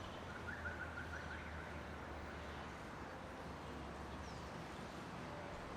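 Evening city ambience: distant traffic with a steady low hum. A brief faint twittering comes about half a second in.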